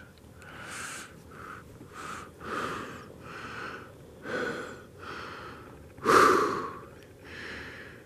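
A man breathing heavily close to the microphone: a series of loud breaths and puffs, the loudest about six seconds in.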